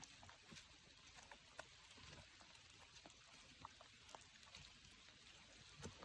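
Near silence: a faint hiss with scattered small clicks and taps, one slightly louder near the end.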